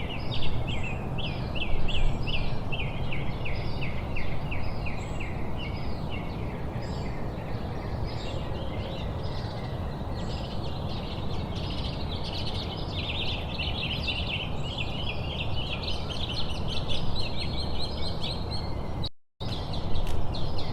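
Birds chirping in quick repeated notes, several a second and growing denser, over a steady background hiss and rumble. The sound drops out for an instant shortly before the end.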